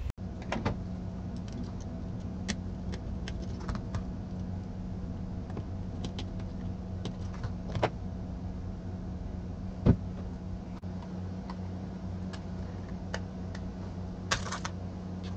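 Plastic case of a small RF remote control being pried apart with a hobby knife and fingers: scattered small plastic clicks and snaps, one sharper snap about ten seconds in and a quick run of clicks near the end, over a steady low hum.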